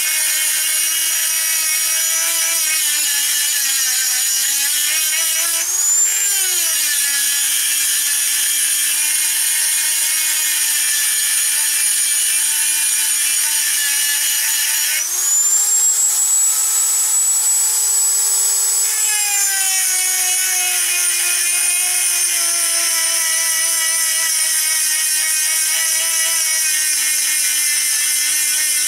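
Handheld rotary tool grinding a steel knife blank with a small grinding stone: a steady high motor whine with a grinding hiss. The pitch rises briefly about six seconds in and again for about four seconds from fifteen seconds, then settles back.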